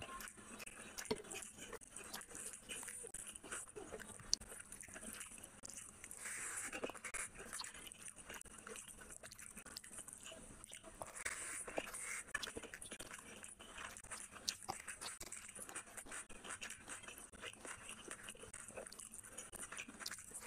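Chewing and wet mouth sounds of someone eating rice and curry with the hand, with small irregular clicks and squelches as the fingers mix and scoop the rice on the plate.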